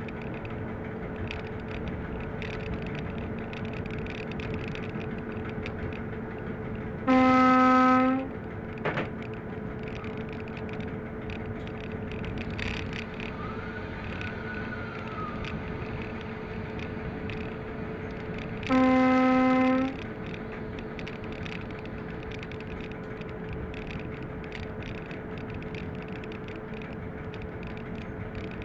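Class 750 diesel-electric locomotive running under way, heard from its cab as a steady drone with a constant tone. It gives two short blasts of its horn, each about a second long, about seven and about nineteen seconds in.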